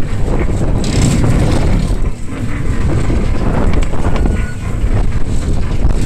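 Loud wind buffeting the microphone during a spinning fairground ride, an uneven low rumble with no clear tones.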